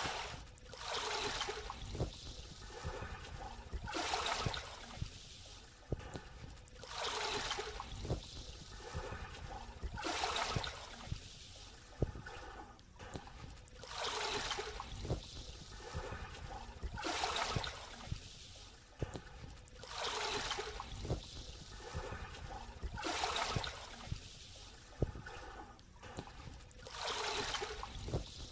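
Small ripples of shallow seawater washing up onto a sandy beach. Each wash is a short hiss that swells and fades about every three seconds, with a quieter wash between them.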